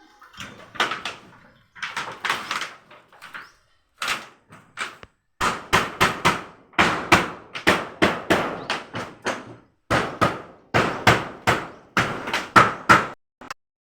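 Hammering: a few spaced blows, then a steady run of sharp, loud strikes about two to three a second, stopping shortly before the end.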